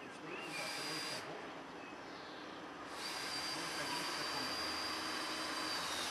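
Handheld power tool running in two spells, about a second and then about three seconds long: a steady high whine over a hiss.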